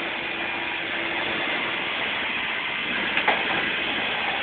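Steady mechanical noise, a dense hiss with a faint low hum under it, and one sharp click about three seconds in.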